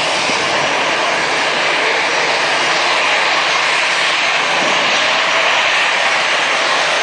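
Jet airliner's engines heard from the ground as it flies low past, a loud, steady rush with no let-up.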